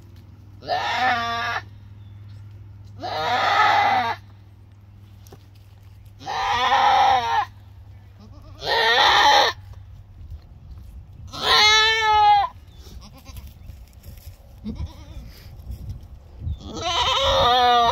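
Boer-pygmy mix doe goat bleating loudly six times, each call about a second long and some wavering, as she strains in labour while her first kid is delivered with assistance.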